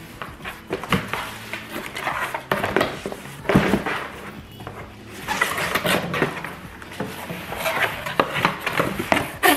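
A cardboard shipping box being handled and opened by hand: irregular scraping, rustling and knocking of the cardboard and its flaps, with louder bursts about three and a half and six seconds in.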